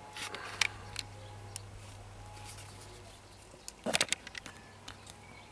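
Light clicks and knocks of a handheld insulation resistance tester and its test leads being handled, with a quick cluster of louder clicks about four seconds in, over a steady low hum.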